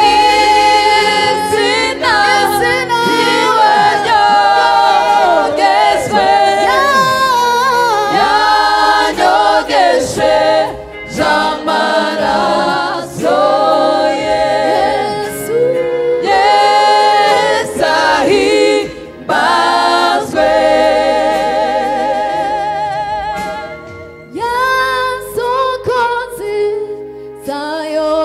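A gospel choir singing, several voices together with wavering held notes, broken by short pauses between phrases.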